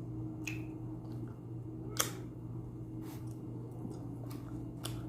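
Scattered sharp clicks and taps, the loudest about two seconds in, over a steady low hum.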